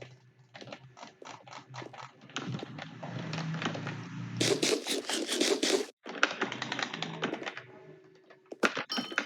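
Typing on a computer keyboard: a run of irregular key clicks that speeds up into a dense, louder flurry about halfway through, stops briefly at about six seconds, then carries on.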